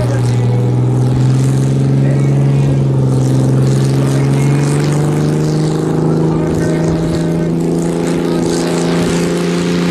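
International Harvester Farmall tractor engine running hard under heavy load as it drags a weight-transfer pulling sled. It is a steady, loud drone whose pitch climbs slightly about four seconds in and then holds.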